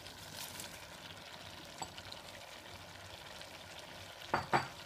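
Chopped cabbage dropping into a pan of stir-frying vegetables and chicken, then a steady faint sizzle as they cook, with two short knocks near the end.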